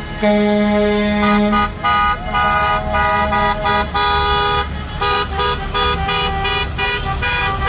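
Several vehicle horns honking at different pitches: long held blasts for the first few seconds, then a run of short toots from about five seconds in.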